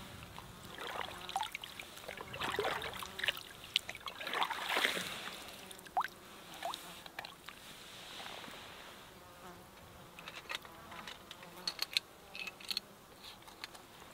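Water gurgling and splashing as a soft plastic water bottle is dipped into a lake and fills, with bubbling sounds in the first half. A few light sharp clicks follow near the end.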